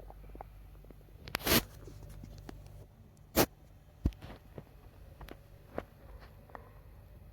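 Bowel sounds of a stomach digesting a meal, picked up close to the belly: scattered short pops and gurgles, with two loud scratchy bursts about a second and a half and three and a half seconds in.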